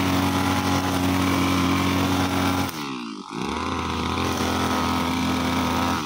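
43cc two-stroke brushcutter engine running at high revs with its 2.8 mm nylon line spinning. A little under three seconds in, the pitch drops and the sound dips briefly as the throttle is eased, then the engine picks up and runs steady again. Near the end the pitch falls off once more.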